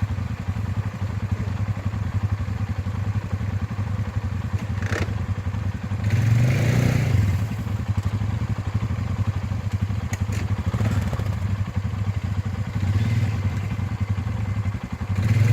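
ATV engine running steadily with a low hum, revving up about six seconds in and again at the end, with smaller rises in between and a couple of sharp knocks.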